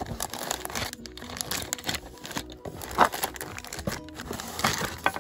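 Plastic packaging bags crinkling and rustling as hands pull them out of a cardboard box, loudest about three seconds in and again near the end, over faint background music.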